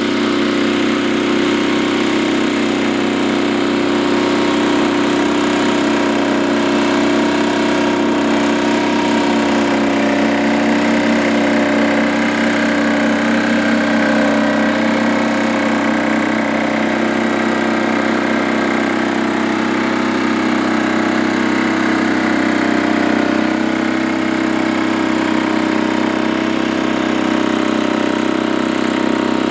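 Holder A12 tractor's air-cooled single-cylinder two-stroke Sachs diesel engine running steadily under load while the tractor pulls a cultivator through the soil.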